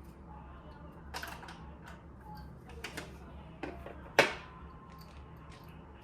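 Small hard clicks and taps of phone-repair tools and screwdriver bits being handled: a few scattered clicks, then one sharp, loud click about four seconds in that rings briefly.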